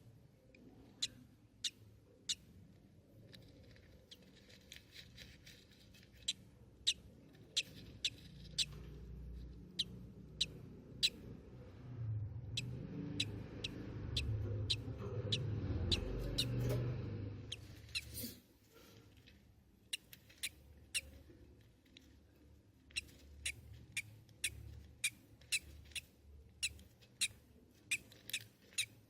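Baby budgie chick peeping: short, high squeaks at roughly one a second. A low rumbling noise swells in the middle and drops away suddenly.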